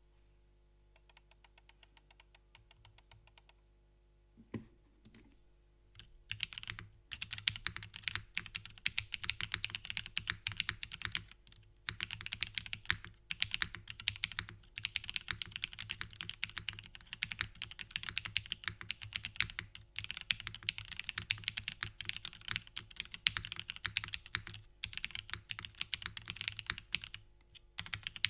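Typing on a Constance TKL mechanical keyboard with lubed and filmed Cherry MX Black linear switches in an aluminium top-mount plate, no foam, GMK keycaps. It opens with an even run of about seven keystrokes a second, then one deeper knock, and from about six seconds in, fast continuous typing with a couple of brief pauses.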